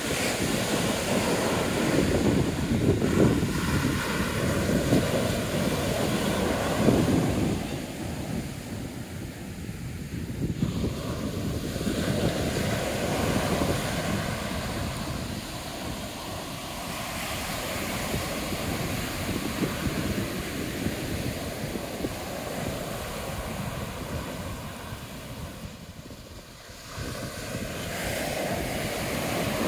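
Ocean surf breaking and washing up a sandy beach, swelling and fading in long waves of sound, with wind rumbling on the microphone.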